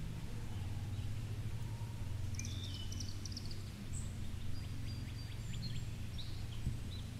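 Outdoor ambience: a steady low rumble with birds chirping and whistling from about two seconds in.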